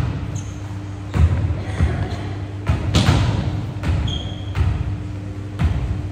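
Volleyball hits during a rally: several sharp smacks of hands and forearms on the ball, about one to two seconds apart, echoing in a gymnasium hall.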